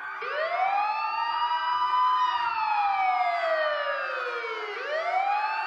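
A siren wailing: its pitch rises over about two seconds, falls slowly, and starts rising again near the end.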